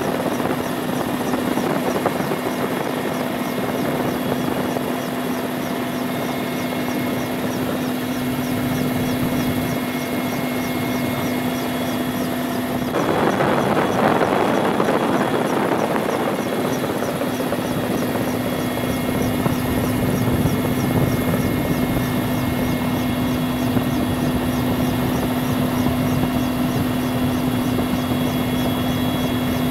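Military helicopter in flight heard from inside the cabin: the steady whine of the turbine engines and the fast, even beat of the rotors. About thirteen seconds in, a louder rush of noise swells for a few seconds and then settles back.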